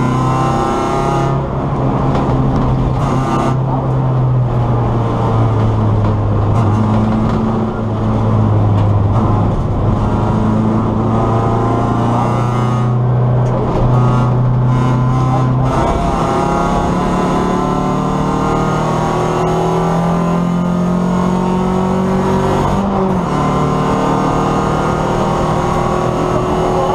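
Race car engine heard from inside the stripped, roll-caged cabin, running hard at speed; its pitch climbs and drops over and over as it is worked up through the revs and shifted, with steady road and wind noise underneath.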